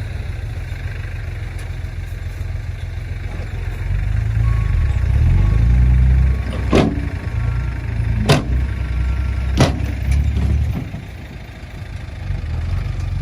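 Tractor engine running with a low, steady rumble that works harder from about four seconds in and eases off near the end. Three sharp knocks come about a second and a half apart while it is working hardest.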